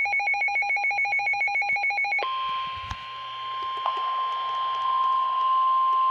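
Weather alert radio going off: about two seconds of rapid electronic beeping, then a steady NOAA Weather Radio warning alarm tone over radio hiss, which cuts off sharply and signals that a warning message follows.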